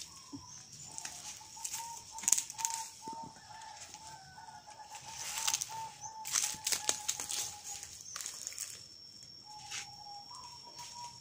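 A bird calling in a long run of evenly spaced notes, about two a second, that stops about eight seconds in, followed near the end by a short, higher call. Bursts of rustling and light knocks from the plastic bucket and brushed plants are heard at times.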